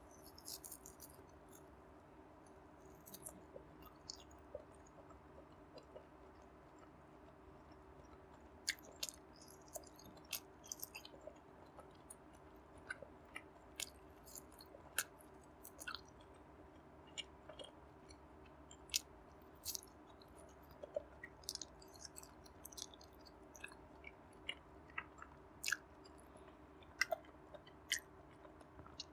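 Close-miked chewing and biting of air-fried barbecued pork belly (liempo): irregular wet mouth clicks and smacks, sparse at first and more frequent after the first few seconds, over a faint steady hum.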